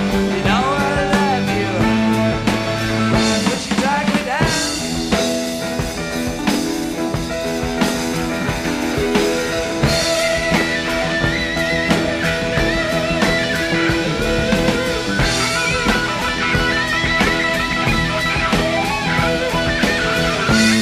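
Blues-rock band playing live in an instrumental break: electric guitar lead with bent notes over bass and drums.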